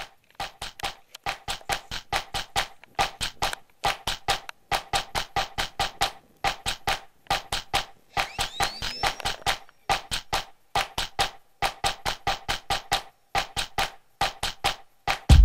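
Music intro: a fast, even pattern of short clicky percussive hits with a pitched ring, in repeating groups, with a brief rising whistle-like sweep about eight seconds in. A deep bass drum comes in at the very end.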